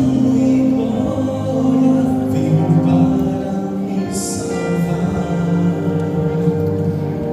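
Music of a vocal group's gospel song, with long held chords and singing.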